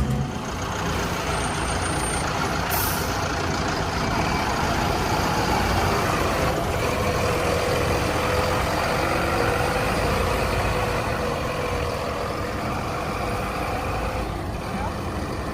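Heavy diesel earthmoving machinery running steadily, with a faint held whine through the middle.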